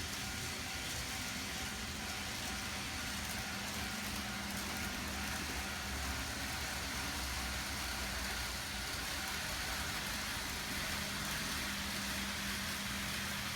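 N-gauge model trains running on a TOMIX layout: a steady hum of their small motors with rolling wheel-on-rail noise and a constant hiss.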